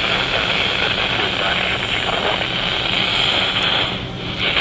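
Steady radio static hiss from a weak weather-radio broadcast, with a faint voice buried under the noise.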